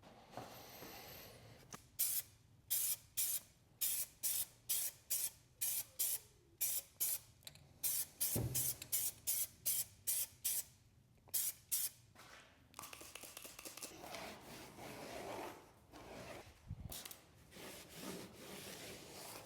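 Hand trigger spray bottle squeezed rapidly about twenty times, each a short hiss, two to three a second. This is followed by several seconds of rubbing, a surface being wiped down.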